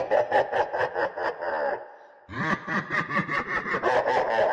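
Laughter: a long run of rapid ha-ha pulses in two bouts, broken by a short pause about two seconds in.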